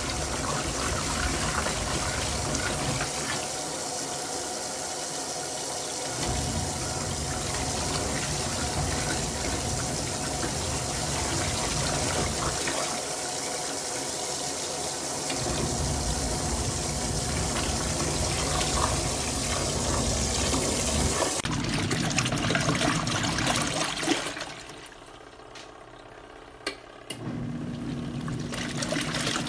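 Water running and splashing steadily. It drops away for a few seconds near the end, and a low steady hum then joins the water.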